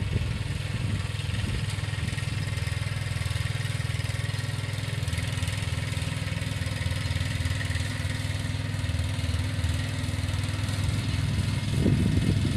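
Ride-on lawn mower engine running steadily as it cuts grass, a low even hum. A louder, uneven low rumble comes in near the end.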